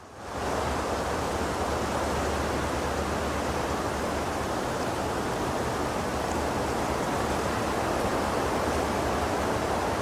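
Steady rushing of rain and wind, fading in over the first half second and then holding level, with a low rumble underneath.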